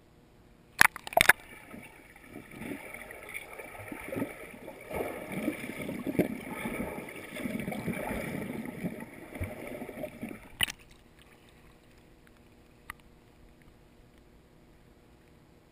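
Underwater sound in a swimming pool, picked up by a submerged action camera: a muffled, churning rumble of water as a swimmer's strokes and kicks pass close by. It begins after a few sharp knocks about a second in and cuts off with a knock near eleven seconds.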